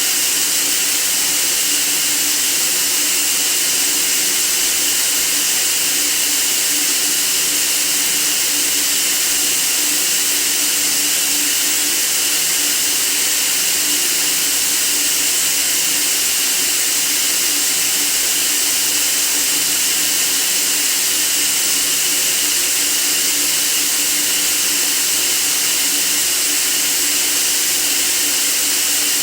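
Steady white noise hiss, even and unchanging, bright and strongest in the high treble, with a faint low hum beneath.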